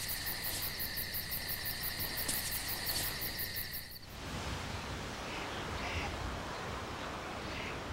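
Night chorus of crickets and other insects: steady high trills with a pulse repeating about four times a second, cutting off about four seconds in. A steady, wind-like outdoor hiss follows, with a few faint short chirps.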